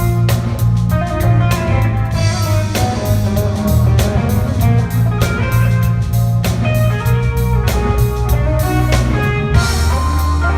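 Live band playing: electric guitar lead over drum kit, bass and piano, with steady cymbal and drum hits under sustained bass notes.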